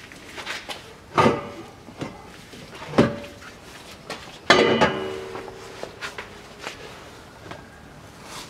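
Steel shell of a new rear muffler clanking as it is worked onto its rubber hangers: three sharp metal knocks, the third the loudest about four and a half seconds in, each with a short metallic ring, among lighter clicks and rattles.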